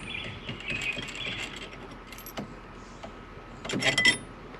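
Light metallic clicks and jangling as the horn pad is worked off a pickup's steering wheel, with a burst of clattering about four seconds in.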